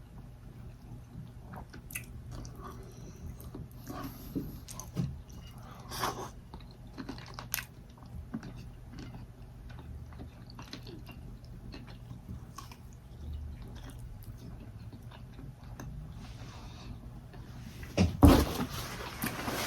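A person chewing food with their mouth close to the microphone: soft wet mouth clicks come and go over a faint low hum. A louder noisy burst comes near the end.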